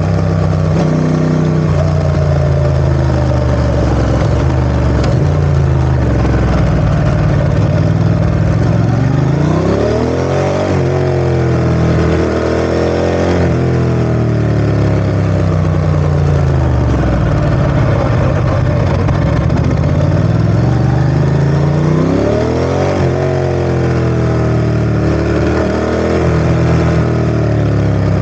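Ducati ST4S motorcycle's V-twin engine running with the revs rising and falling. The pitch climbs about a third of the way in, eases back down, and climbs again near the end.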